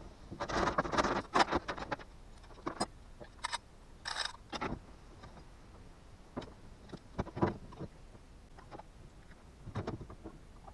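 Unimog spare wheel being worked free of its carrier: a flurry of knocks and rattles, then separate knocks and clunks every second or two.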